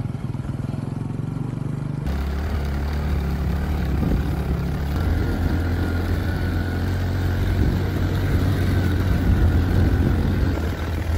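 Motorcycle engine running under way, heard from the bike itself as it carries a passenger, with a constant rushing noise over it. About two seconds in the engine note drops lower and then stays steady.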